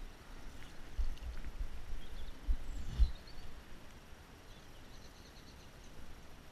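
Low rumbling thumps on an action camera's microphone for the first three seconds or so, loudest about three seconds in, with faint bird chirps over the river about three and five seconds in.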